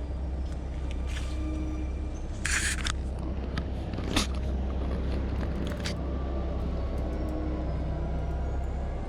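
Someone walking through undergrowth on a creek bank: rustling and small twig snaps over a steady low rumble, with a brief swish of leaves about two and a half seconds in and a sharp snap about four seconds in.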